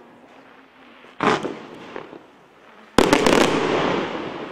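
Attention Seeker professional Category 4 firework going off: a single loud bang about a second in, then a quick cluster of sharp bangs near three seconds whose noise trails off over the following second.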